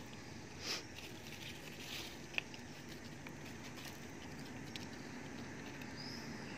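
Light scattered patter and rustles with one sharp tick about two and a half seconds in, over a faint steady outdoor background.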